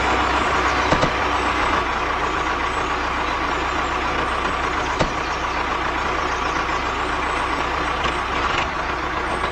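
Steady machine running noise with a constant whine and a low hum, broken by two light clicks, about a second in and about five seconds in.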